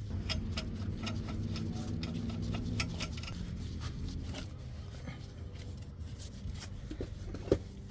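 Small metallic clicks and ticks of lug nuts being threaded by hand onto a steel wheel's studs, irregular and light, with one slightly sharper click near the end. A low steady hum runs underneath.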